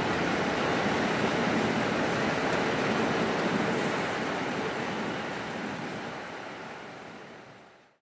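Kintetsu 1400 series electric train running away along the track, a steady rush and rumble that dies away, fading out to silence near the end.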